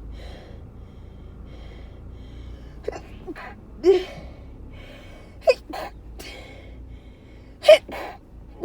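A woman sneezing several times in a row, with sharp gasping breaths between, the loudest sneeze near the end. She has a stuffy, running nose from what she takes for either allergies or a cold.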